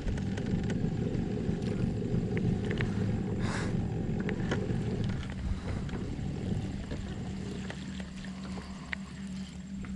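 Bass boat's bow-mounted electric trolling motor running with a steady low hum and rumble, with a few light clicks from the baitcasting reel being worked.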